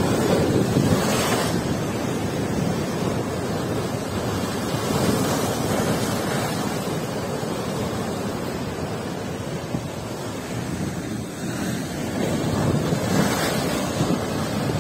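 Waves of a rough sea breaking and churning against rocks in a shoreline inlet, a continuous wash that swells louder a few times, with wind buffeting the microphone.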